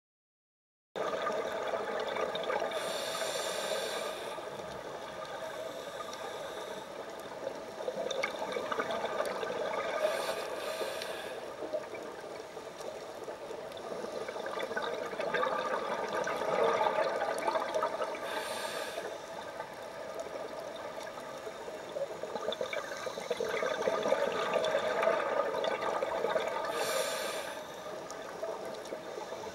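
A scuba diver's breathing through a regulator underwater, heard through the camera's underwater housing: four bursts of exhaled bubbles, about every eight seconds, over a steady underwater hiss and hum.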